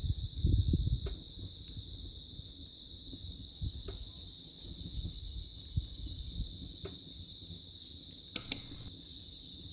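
Insects trilling in a steady, high-pitched chorus, with a low rumble in the first second and two sharp clicks near the end.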